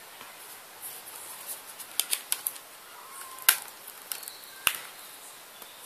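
Handled mobile phone, its plastic casing giving a few sharp clicks and snaps scattered over several seconds, the loudest about halfway through.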